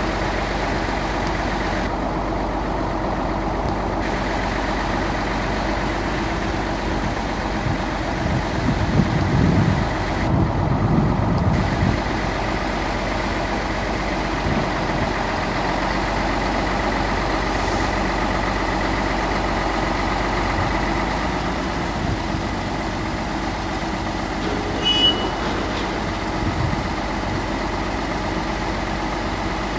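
MAN crane lorry's diesel engine running steadily to power its truck-mounted hydraulic crane during a lift, getting louder for a few seconds about nine seconds in. A short high-pitched sound stands out near twenty-five seconds.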